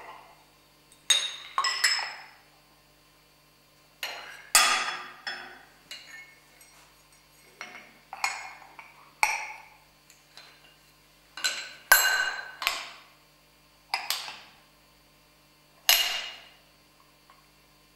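Metal letterpress furniture bars clinking as they are set down and pushed against a type forme in an iron chase on a steel imposing surface: a series of sharp metallic clinks, some in quick pairs, each with a short ring.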